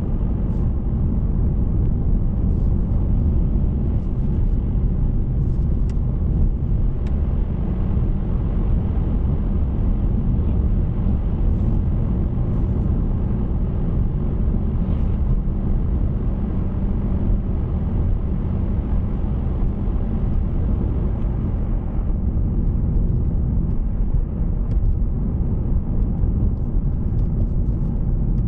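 Steady low road and engine rumble of a car driving along a road, with faint ticks now and then.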